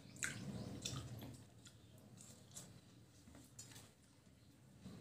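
A person biting into and chewing watermelon, faint, with a few short clicks from the mouth, most of them in the first second and a few more around three seconds in.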